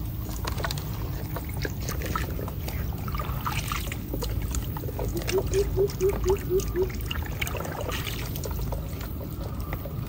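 Muddy water splashing and trickling as a plastic basket is scooped through a shallow ditch and lifted out, with small splashes and clicks throughout. About five seconds in comes a short run of about seven quick chirping notes.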